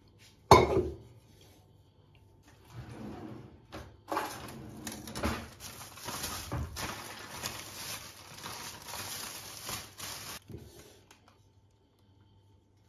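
A stainless steel pot set down on a stone countertop with one sharp clank, then about six seconds of plastic bag rustling and crinkling as a full bag of milk is handled over the pot.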